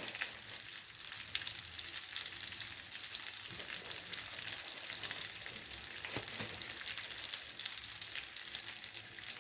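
Beef burger patties sizzling in hot oil in a pot, a steady crackle of frying with small spitting pops now and then.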